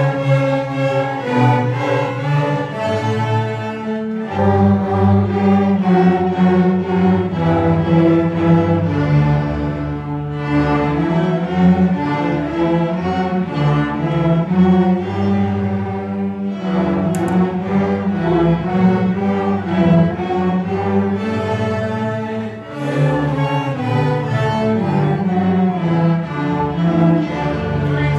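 Student string orchestra of violins and cellos playing a French folk song in waltz-like 3/4 time, in phrases with short breaks about every six seconds, ending right at the close.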